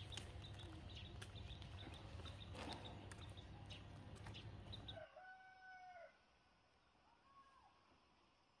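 A rooster crows once, faintly, about five seconds in: one held call that bends at its start and end and lasts about a second, with a shorter, fainter call after it. Before it there is a low steady background hum with scattered light ticks.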